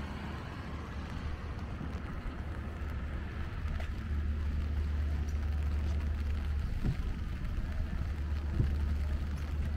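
City street ambience in light rain: a steady low rumble under a soft hiss of rain on wet pavement. The rumble grows louder about four seconds in, and two faint knocks come near the end.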